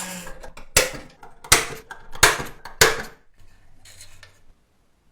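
A power tool's motor cuts off, then four sharp metallic clacks follow, about two-thirds of a second apart, each with a brief ring.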